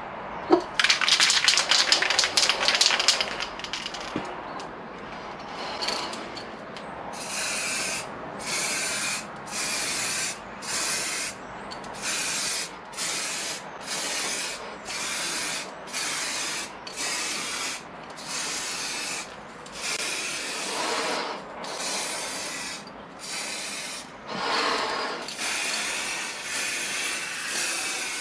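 Aerosol can of heat-resistant matt black stove paint sprayed in a long series of short hissing bursts, roughly one a second. Before the spraying, a few seconds of rapid clattering near the start.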